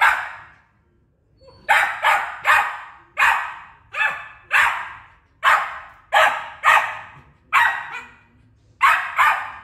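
A young Australian cattle dog (blue heeler) barks over and over: about a dozen sharp barks, some in quick pairs, with short pauses between them.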